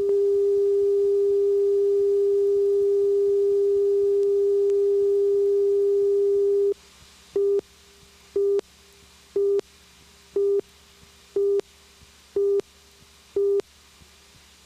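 Steady electronic test tone held for about seven seconds, cutting off sharply, then seven short beeps of the same pitch about a second apart. This is a videotape leader's line-up tone and countdown beeps between segments.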